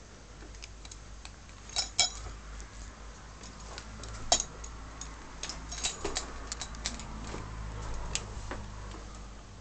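Irregular sharp clicks and light clinks, the two loudest about two seconds and four seconds in, over a low rumble of handling noise.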